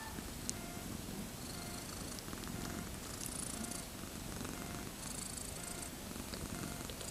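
A cat purring steadily, a low continuous rumble, with faint rustling hiss over it in the second half.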